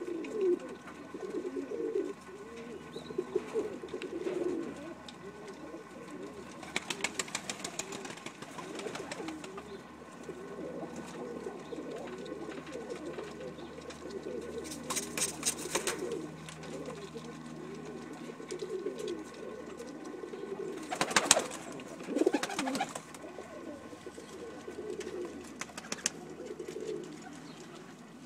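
Dutch high flyer pigeons cooing in a loft: continuous overlapping low, warbling coos from several birds. Several short spells of rapid clicking break in, the loudest about three quarters of the way through.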